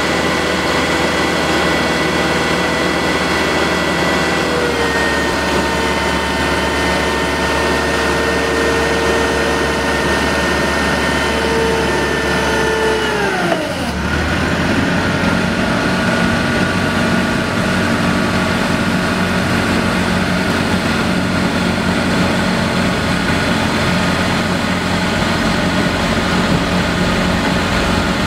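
LPG forklift engine held at raised revs with a steady whine while the mast lifts the load. About halfway through the pitch falls sharply as it drops back to idle, and it then idles steadily while the load is lowered.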